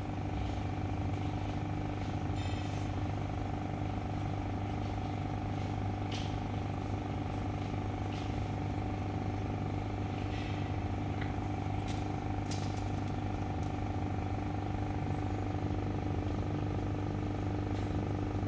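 Aquarium air pump running with a steady electric hum, driving the air stone that sends up a curtain of bubbles; a few faint clicks come and go over it.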